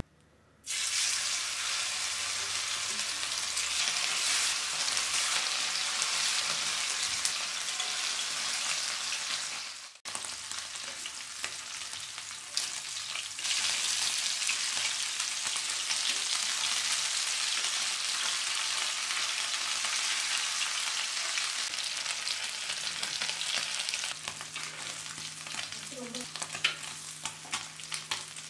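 Masala-coated sardines (mathi) sizzling as they shallow-fry in hot oil in a black iron pan, the steady sizzle starting as the fish go into the oil. The sizzle cuts off abruptly about ten seconds in and resumes, then grows lighter near the end with scattered pops.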